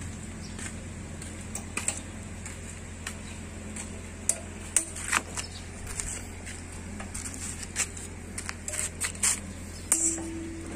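Hand tools clinking and tapping on the metal of a small portable generator engine, irregular sharp clicks bunched around the middle and again near the end, over a steady low hum.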